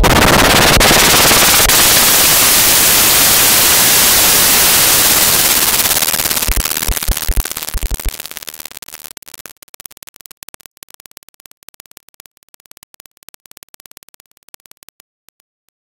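Loud, harsh digitally distorted noise from a video-effects edit, dense and hissing at first. It breaks up about six seconds in and fades, leaving scattered crackles and clicks that stop near the end.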